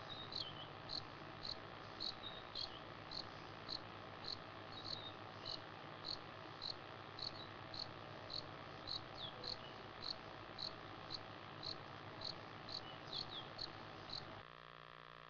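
A cricket chirping steadily, short high chirps about twice a second, over a steady low hum that partly drops away near the end.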